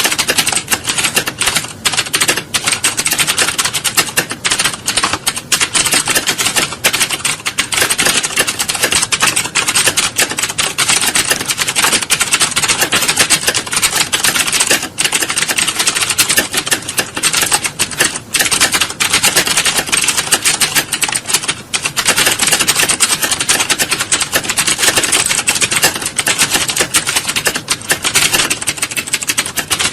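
Computer keyboards being typed on rapidly: a dense, unbroken clatter of key clicks.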